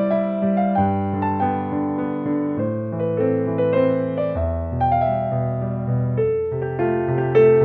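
Background keyboard music in a piano sound: a melody of held notes over chords and low bass notes.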